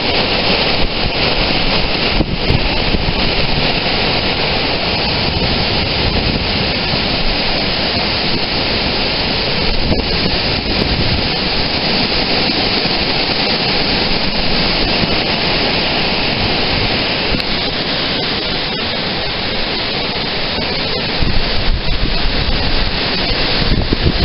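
Strong wind gusting and buffeting the microphone: a loud, steady rush with a rumbling low end, a little stronger near the end.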